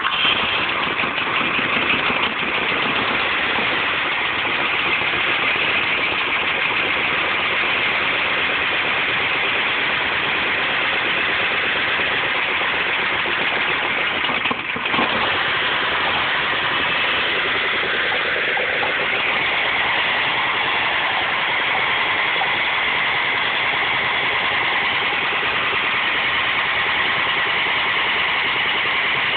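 1970 Ford F-350 pickup's V8 engine running steadily with no air cleaner on its carburetor, just brought back to life after sitting unused for over 20 years.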